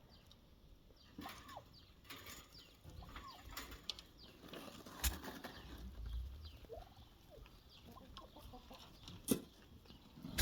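Chickens clucking, many short calls overlapping, with two sharp knocks about halfway through and near the end.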